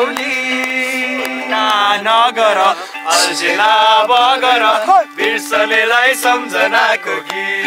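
Singing with musical accompaniment: a voice carrying a wavering melody over steady held instrumental notes.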